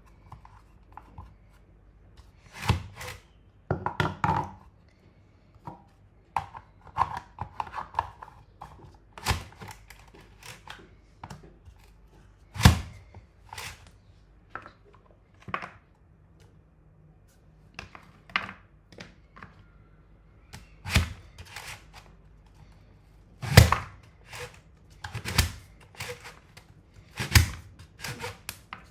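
Safe Slice mandoline being worked through vegetables: a series of irregular sharp chopping thunks, some in quick pairs, with short pauses between.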